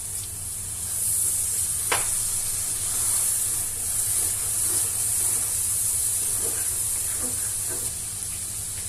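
Spice paste sizzling and hissing in hot oil in a pan after a little water has been added, a steady high hiss that strengthens about a second in. A single short sharp tick about two seconds in.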